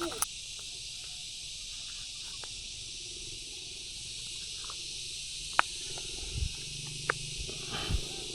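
Steady high-pitched insect chorus, a continuous hiss-like drone. A few sharp clicks about five and a half and seven seconds in, and soft low knocks near six and a half and eight seconds.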